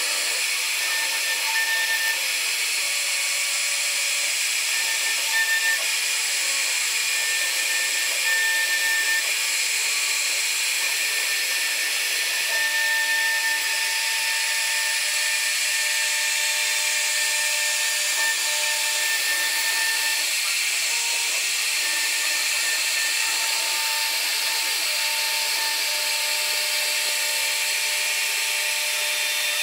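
CNC router spindle running and its bit cutting into wood: a steady high hiss with whining tones that come and go as the cut goes on.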